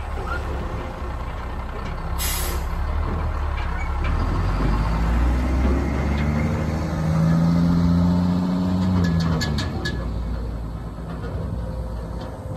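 Sterling L7500 dump truck's diesel engine pulling away and accelerating, with a short hiss of air from the truck's air system about two seconds in. The engine note rises to its loudest around eight seconds in, then drops as the truck drives off.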